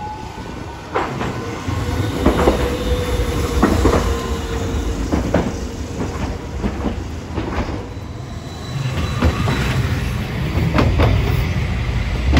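Hiroshima Electric Railway low-floor trams running past close by on street track: wheels clacking irregularly over rail joints above a steady rumble that swells twice. A thin steady whine runs through the first half.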